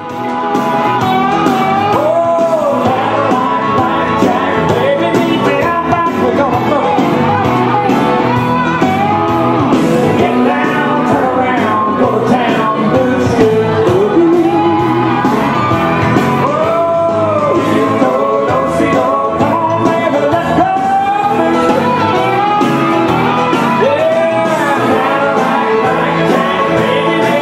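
Upbeat song with a lead singer over a band accompaniment, playing loudly and continuously.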